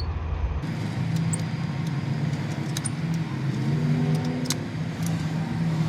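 A motor vehicle engine running steadily nearby, with a few sharp clicks scattered through.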